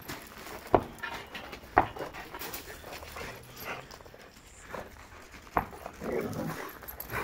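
Dogs playing at a tetherball, panting, with several sharp smacks as the ball is batted; the two loudest come about a second and two seconds in, another near the end.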